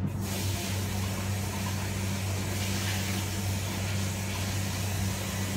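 Kitchen tap running into a sink as chicken wings are rinsed under it: a steady hiss over a low steady hum.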